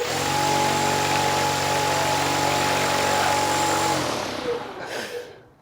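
Motor-driven propeller spinning up abruptly at a low throttle setting and running at a steady speed, a humming drone with rushing air, for about four seconds before winding down.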